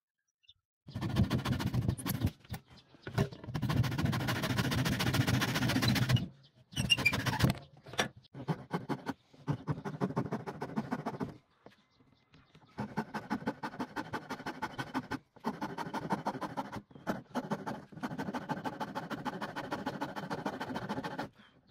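Steel hand file rasping the corner of a softwood block, in runs of rapid back-and-forth strokes broken by short pauses.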